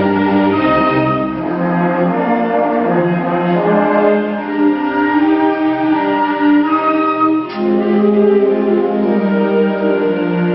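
High school orchestra playing held chords, brass with French horn over strings, the notes moving every second or so.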